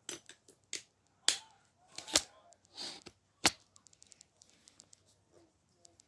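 Handling noise from a hand-held recording device: several sharp knocks and a short scrape, the loudest about one, two and three and a half seconds in, then faint light ticks.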